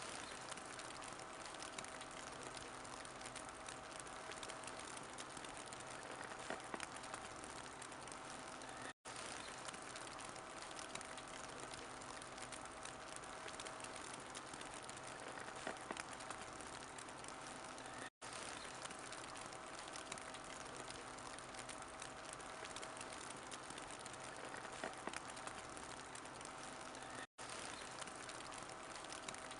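Wood fire in a fireplace crackling steadily, with occasional sharper pops over an even hiss. The sound drops out to silence for an instant three times, about every nine seconds.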